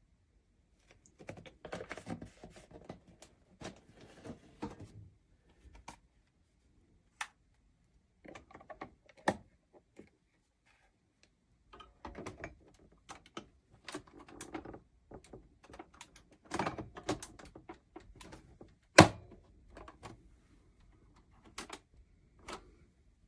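Irregular clicks, knocks and rustles of objects being handled, with one sharp knock about 19 seconds in.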